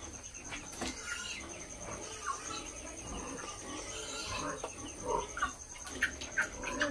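A flock of broiler chickens giving many short, scattered calls and clucks, over a steady high-pitched whine.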